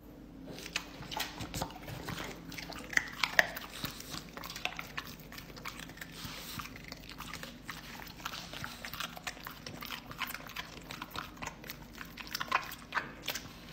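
A French bulldog making quiet, irregular small clicks and smacks, the kind of mouth noises a dog makes while licking or chewing.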